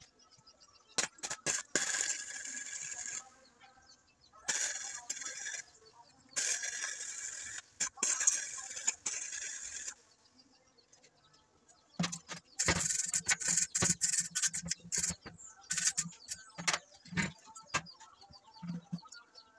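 MIG welding torch arcing on steel: four separate runs of crackling hiss, each lasting one to a few seconds, with short pauses between them. Near the end it gives way to a few scattered knocks and clicks.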